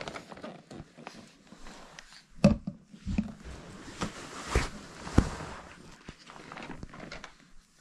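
A few scattered knocks and thumps with light rustling, the loudest about two and a half seconds in, from a toddler handling plastic toys and a sippy cup.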